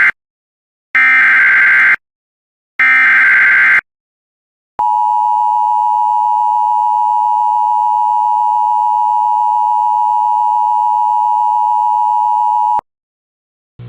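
Emergency Alert System header: two loud bursts of SAME digital data tones, each about a second long and a second apart, then the EAS two-tone attention signal, a steady tone held for about eight seconds that stops abruptly. It announces an incoming emergency alert.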